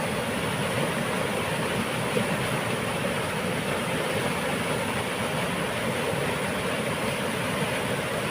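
Water rushing through a dam, a steady unbroken rumbling.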